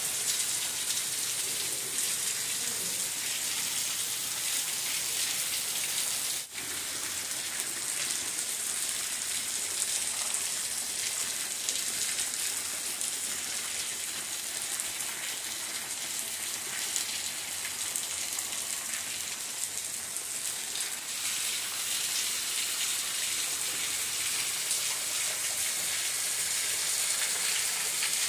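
Heavy rain falling steadily on tile roofs and paving, an even hiss, with a brief sudden break about six and a half seconds in.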